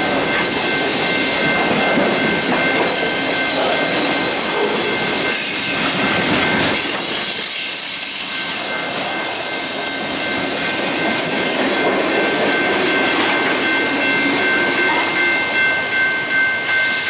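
Freight cars of a CSX manifest train rolling past a grade crossing: a loud steady rumble and rattle of wheels on rail, with steady high ringing tones over it. In the last couple of seconds, as the rolling noise thins, the grade-crossing bell's even ringing beat comes through plainly.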